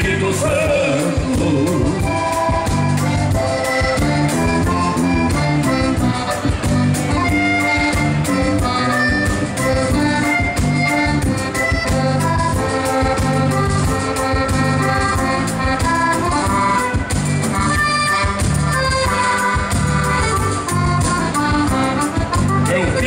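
Live band playing traditional gaúcho music: an accordion-led instrumental passage over bass, guitar and drums with a steady beat, and singing starting near the end.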